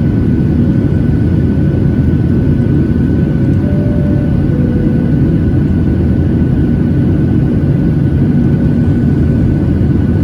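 Cabin noise inside a Boeing 737-800 in flight: a steady, loud rumble of the CFM56-7B turbofan engines and airflow, with a thin steady whine on top.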